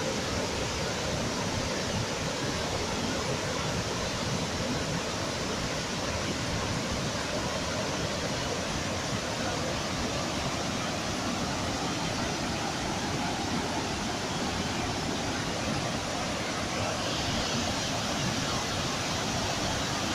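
Waterfall rushing: a steady, dense roar of falling water that grows a little hissier near the end.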